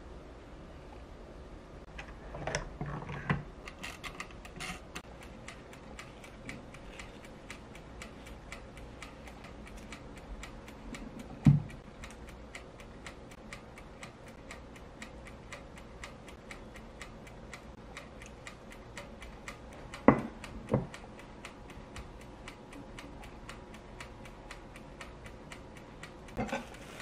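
Quiet kitchen handling: a small knife peeling and slicing an avocado, with a few knocks as things are set down on a wooden board and into a ceramic bowl, the loudest a low thump about a third of the way in and two sharp knocks about three-quarters through. A steady fast ticking runs underneath.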